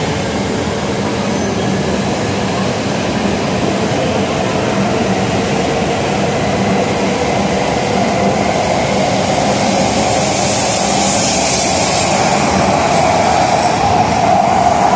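An E5 series Shinkansen accelerating away from the platform, its cars passing close by with a steady rolling rumble. The noise grows gradually louder over the last several seconds.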